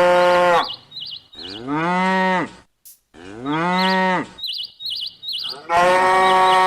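Cows mooing: a long moo that ends about half a second in, two shorter moos that rise and then fall in pitch, and another long moo starting near the end. Small bird chirps sound in the gaps between the moos.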